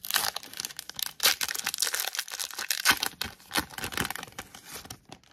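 A trading card pack's wrapper being torn open and crinkled by hand: a dense crackling that stops about five seconds in.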